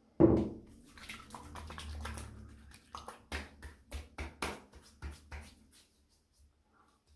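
Hands applying aftershave after a wet shave: a sudden thump with a short ring at the start, a couple of seconds of palms rubbing, then a run of quick slaps of the hands on the neck and face, about three a second.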